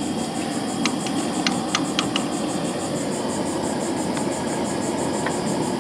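Steady hiss and rumble of a gas burner under a pot of boiling crab boil, with a few light metal clicks from the ladle and strainer basket about one to two seconds in.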